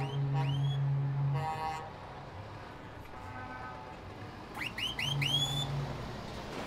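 Trucks' air horns sounding: a low steady horn blast lasting about a second and a half, then a shorter one about five seconds in. Short rising whistles sweep up over the horns, two near the start and four in quick succession about four and a half seconds in.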